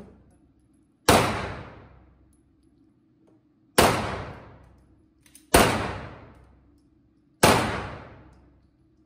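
Four pistol shots from a semi-automatic handgun, spaced roughly two seconds apart, each one a sharp crack followed by a long echoing decay off the walls of an indoor range.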